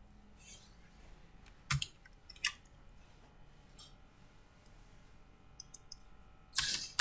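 Computer mouse clicking twice, about two and three seconds in, then faint keyboard keystrokes that become a quick run of louder key clicks near the end.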